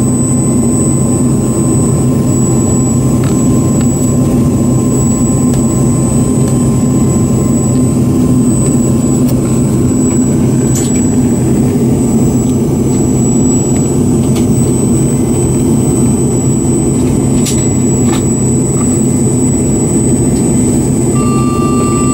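Pratt & Whitney JT8D-219 turbofan of an MD-88 running steadily at low power, heard inside the cabin beside the tail-mounted engine: a dense low rumble with a thin, steady high whine.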